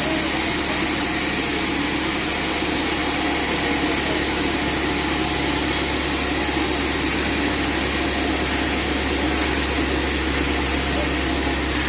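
Sawmill band saw running with a steady, even drone that holds without change.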